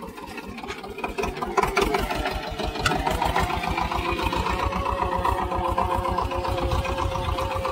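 Swaraj 724 tractor's diesel engine running with an even, low chugging beat, getting louder about one and a half seconds in and then holding steady.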